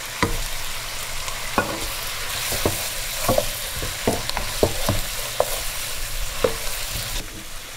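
Lamb pieces and onions frying in hot oil in a pot, sizzling steadily, while a spoon knocks and scrapes against the pot about a dozen times as they are stirred. The sizzle grows louder about two seconds in and eases near the end.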